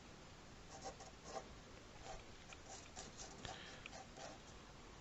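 Faint drawing strokes on paper: a run of short, soft scratches, several a second, between about one and four seconds in.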